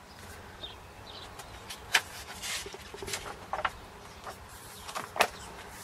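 Glossy paper of a car sales brochure being handled and turned: several short crisp rustles and taps, the sharpest about two seconds in and again near the end.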